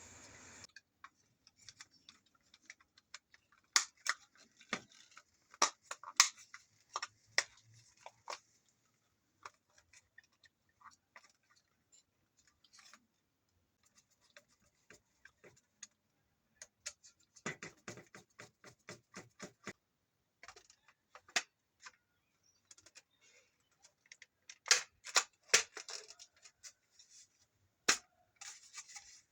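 Irregular clicks, taps and short scraping rustles of small parts being handled, in clusters with quiet gaps.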